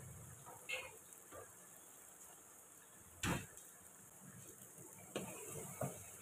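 Chicken pieces cooking in their juices in a nonstick karahi, a faint steady sizzle, broken by a few short knocks, the loudest about halfway through. Near the end a wooden spatula knocks against the pan as stirring begins.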